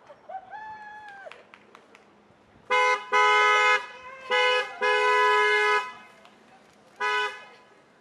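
Car horn honking in a string of about five blasts, two pitches sounding together: a short toot, then three longer blasts in quick succession, and a last short toot near the end.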